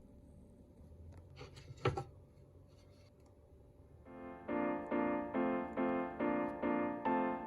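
Faint room tone with a single sharp click about two seconds in, then background piano music starting about four seconds in: repeated chords, about two a second.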